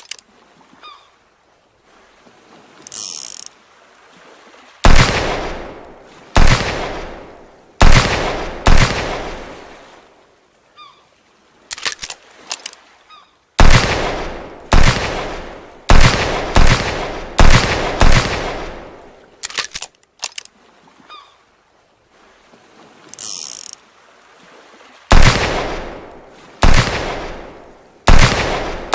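Revolver gunshot sound effects: groups of sharp shots, each trailing off in a long echoing decay, with a few small mechanical clicks like cocking before each group. A short honk-like burst sounds about 3 seconds in and again past the 23-second mark.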